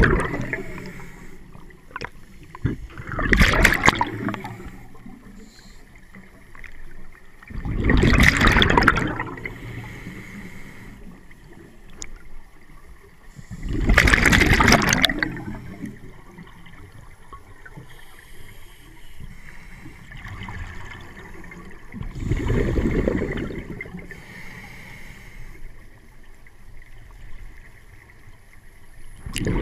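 Scuba regulator exhaust: a diver's exhaled breath bubbling out in bursts of a second or two, four times, five to nine seconds apart, with quieter water noise between.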